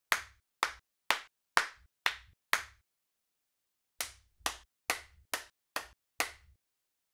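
Sampled real hand claps triggered one at a time from a drum rack, about two a second: six claps, a short pause, then six more, each with a quick decay.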